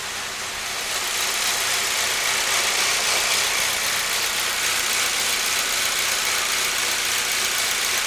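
Saab 9-3's 2.0-litre turbocharged four-cylinder engine idling steadily. The car is logging random misfires on cylinders 3 and 4, yet it seems to run smoothly with no misfire to be felt.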